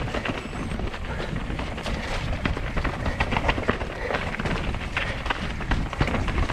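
Mountain bike riding over rough rock: tyres clattering on stone and the bike's chain and frame rattling in a dense run of sharp knocks, over a steady low rumble of wind on the microphone.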